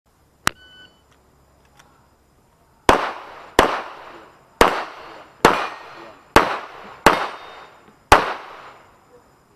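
A short beep, then seven handgun shots fired one at a time at a steady pace, a little under a second apart, each with an echoing tail: a shooter working through an IPSC practical-pistol stage.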